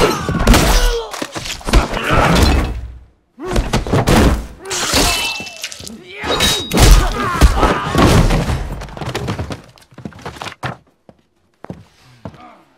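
Sound-designed movie fight: heavy thunks and body impacts come in quick succession, mixed with grunts and cries and objects crashing and breaking. The action stops about ten seconds in, leaving a few faint knocks.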